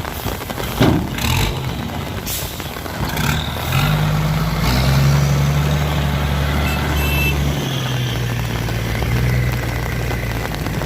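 Diesel engine of a ten-wheel dump truck running steadily, coming in about four seconds in, after a few short sharp knocks or hisses. A steady hiss, rain on the surroundings, lies underneath.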